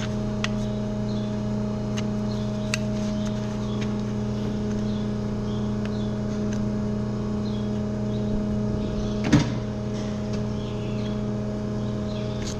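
Hoof knife carving a cow's hoof, with scattered small clicks and short squeaks, over a steady low machine hum. A single sharp knock about nine seconds in.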